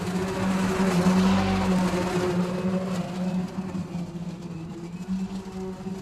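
Makita 36V (2×18V) cordless lawn mower running with a steady hum, its blade cutting dry grass. The cutting noise is loudest a second or two in and fades as the mower moves away.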